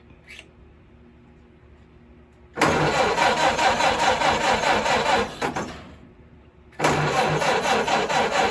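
1929 Ford Model A four-cylinder engine being cranked by its electric starter in two bursts of about three seconds each, with an even pulsing rhythm. The second crank begins about seven seconds in.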